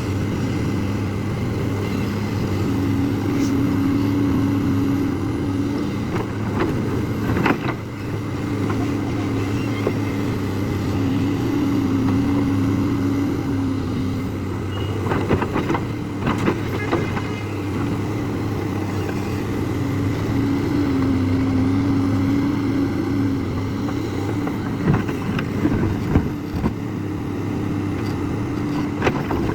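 A JCB excavator's diesel engine running steadily. Several times a higher whine swells in and out as the hydraulics work under load, with scattered clanks and knocks.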